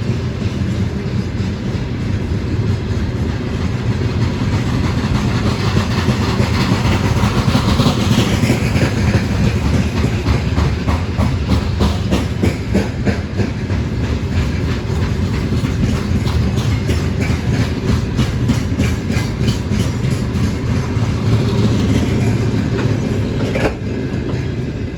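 Freight train wagons rolling past, wheels clacking in quick rhythmic runs over rail joints above a steady low rumble, easing slightly near the end.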